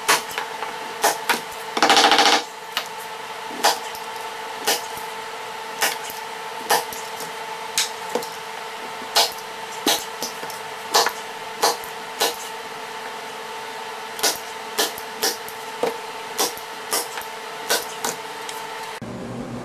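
Staple gun driving staples into a canvas on its stretcher bars: sharp snaps at an uneven pace of about one a second over a steady hum, with a brief buzzing rattle about two seconds in. Everything cuts off abruptly just before the end.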